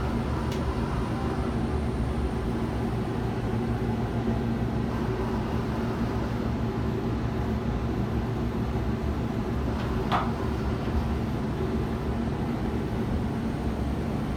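Steady low mechanical hum inside a riding Ferris wheel gondola, with a short higher squeak about ten seconds in.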